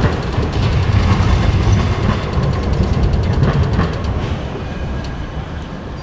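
City intersection traffic noise dominated by a low rumble from a passing tram, louder for the first four seconds and then easing off.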